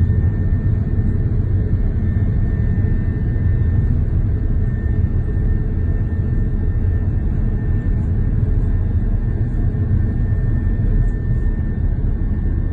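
Jet airliner cabin noise heard from a window seat of an Airbus A330-200 rolling on the ground: a steady, loud low rumble of the engines and wheels, with a thin steady whine above it.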